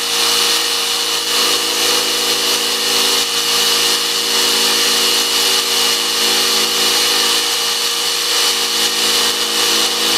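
Power-tool motor running at steady high speed while a 6.5 mm diamond core bit grinds into porcelain tile, a continuous whine over a gritty grinding noise.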